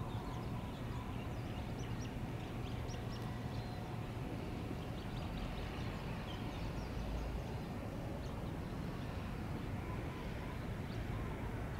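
Small birds chirping at scattered moments over a steady low outdoor rumble.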